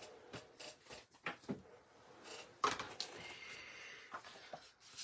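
Cardstock sheets being handled and slid over a craft mat: light paper rustling and sliding with a few small taps, the sharpest knock about two and a half seconds in.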